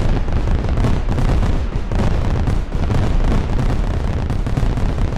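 Fireworks display: a loud, dense, unbroken barrage of booms and crackling bursts.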